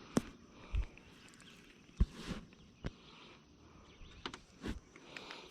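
A handful of sharp knocks and handling bumps, spaced irregularly, over a faint steady background of insects buzzing.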